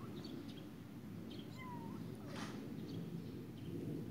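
A newborn kitten mewing faintly: a few short, thin mews, one rising near the start and one falling about one and a half seconds in, over a steady low background noise.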